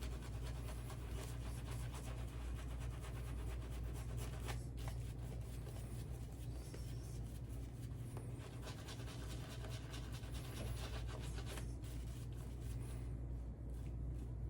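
Shaving brush working up shaving-soap lather: a soft, continuous wet scratching and rubbing of the bristles.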